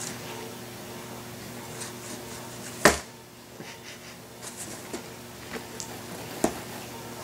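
A cat playing under a cardboard box, batting at a dragged string toy. There is one sharp knock about three seconds in, then light taps and scratches of paws and string on cardboard and carpet, over a low steady hum.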